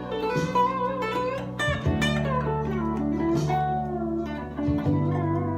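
Ibanez AGR-73T hollow-body electric guitar played in a bluesy jam: single-note lines with bent notes over sustained low notes, fresh notes plucked every second or so.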